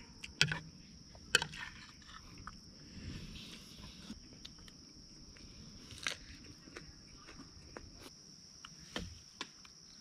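Insects trilling steadily in a high, even drone, with scattered light clicks of a spoon on a plate and of chewing.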